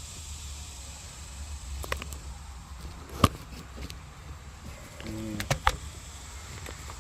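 Scattered sharp clicks and knocks from handling equipment, the loudest about three seconds in and two more close together near the end, over a low steady hum.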